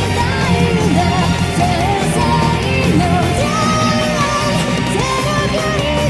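A live rock band playing an anime song: distorted electric guitars, drums and keyboard under a lead vocalist singing the melody.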